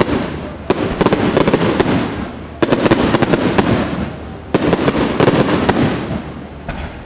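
Fireworks display: aerial shells bursting in quick clusters of sharp bangs and crackle, four clusters about two seconds apart, each trailing off before the next.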